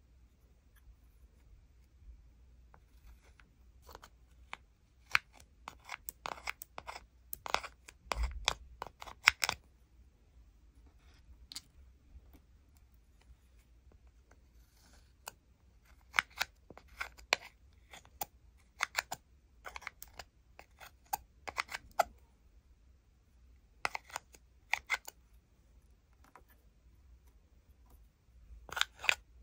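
Metal spatula scraping cream makeup out of a plastic palette, in bursts of quick scrapes and clicks separated by quiet pauses.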